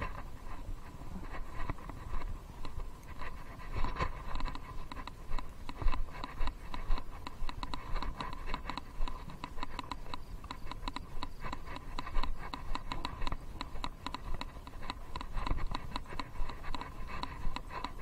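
Loose chest-harness camera rattling and scratching in its mount as the rider moves on a walking horse: a continuous run of quick small clicks with a couple of louder knocks.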